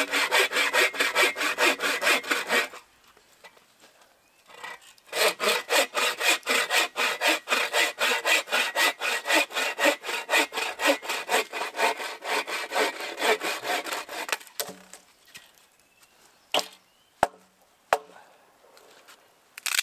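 Hand saw cutting through a dead log in quick, even back-and-forth strokes. The sawing stops about three seconds in, starts again a couple of seconds later and runs until about two-thirds of the way through. A few separate sharp knocks follow near the end.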